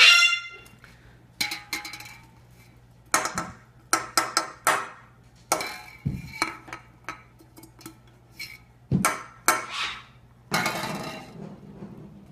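Empty aluminium Monster energy-drink can being knocked and batted about by a pet, clanking with a short metallic ring on each hit, at irregular intervals, with a couple of duller thuds.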